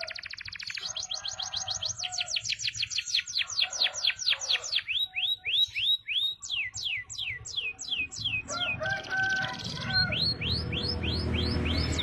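Domestic canary singing a long song: a fast dense trill, then rapid rows of sweeping notes, then slower whistles that each drop in pitch, a few per second, and near the end a run of rising notes. A low rumble builds underneath in the last few seconds.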